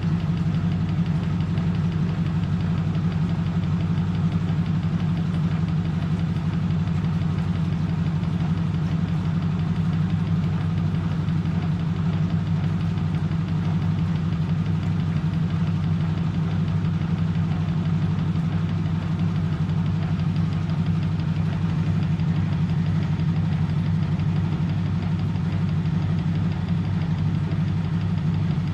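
1997 M eurotech EW 450 washing machine, built by Antonio Merloni, running with a steady, unchanging motor hum.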